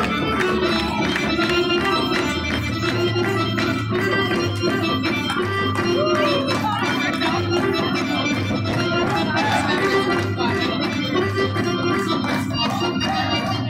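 Live Serbian folk dance music from a small folk orchestra: a melody of held notes over a fast, even beat.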